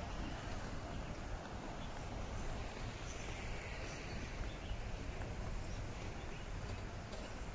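Steady background ambience: an even wash of noise with a low rumble underneath, no distinct events standing out.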